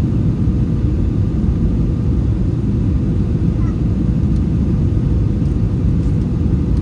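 Steady low rumble of an Airbus A321 in flight on its descent, the engines and rushing air heard from inside the cabin, with a faint steady hum.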